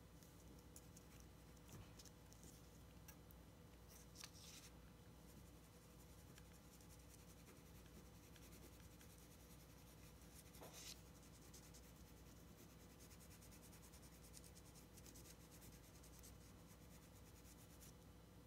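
Faint scratching of a graphite pencil sketching on drawing paper, many quick light strokes, with a brief rustle of paper about four seconds in and again near ten and a half seconds in.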